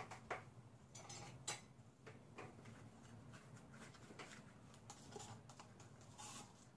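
Near silence with faint, scattered clicks and taps: a plastic paint cup and a plastic bottle being handled in rubber-gloved hands.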